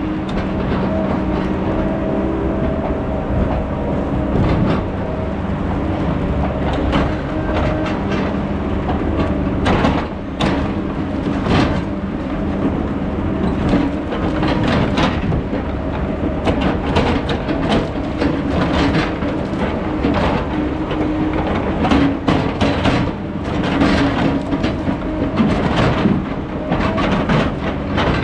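Heavy logging equipment's engine running steadily, with frequent irregular metallic clanks and knocks.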